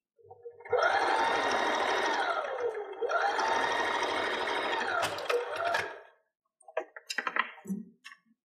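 Janome electric sewing machine stitching a top-stitch seam along a fabric edge, in two runs: each time the motor whine rises in pitch as it speeds up and falls as it slows, and the stitching stops about six seconds in. A few light clicks and rustles follow near the end.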